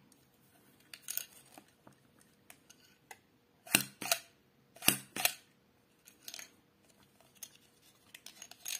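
Hard plastic clicks of a small plastic magic coin box as its sliding drawer is pushed and pulled with a coin inside. Lighter clicks come and go, with two pairs of sharp clicks about four and five seconds in.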